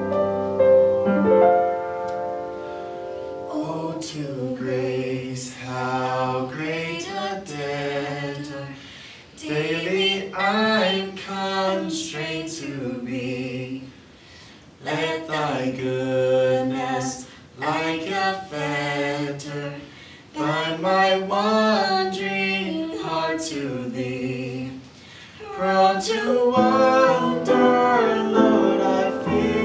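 A man singing a sacred solo with piano accompaniment. Piano chords play alone for the first few seconds before the voice comes in, then the song runs in phrases with short breaks between them.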